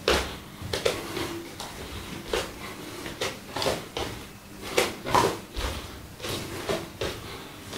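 A single training stick swishing through the air in quick strikes, often in pairs, with bare feet stepping and shuffling on a wooden floor.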